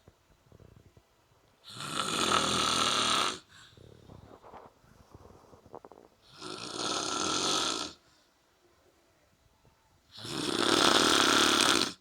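A man snoring heavily: three loud snores about four seconds apart, each lasting about a second and a half, with quiet breathing between them.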